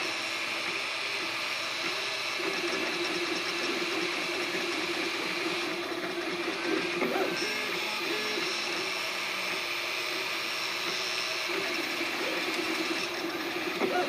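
3D printer printing a part: its stepper motors sing in short tones that jump between pitches as the print head moves, over a steady hiss.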